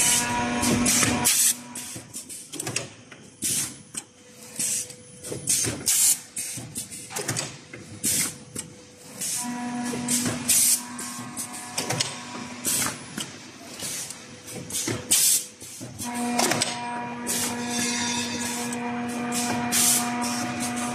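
SL-480DH servomotor-driven surprise egg making machine running: a quick, irregular string of mechanical clacks and short hisses, over a steady humming tone that drops out for several seconds and returns about halfway through.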